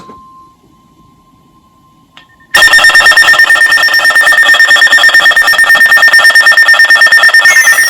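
Electronic emergency alert tone. A faint steady beep gives way, about two and a half seconds in, to a loud, rapidly pulsing ringing of several high tones, and falling pitch glides join it near the end.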